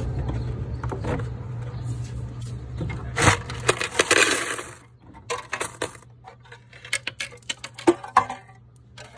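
Metal coins clinking and rattling as a hand scoops them out of an arcade machine's coin hopper. A loud rush of sliding coins comes around three to four and a half seconds in, followed by scattered single clinks, with a steady low hum underneath.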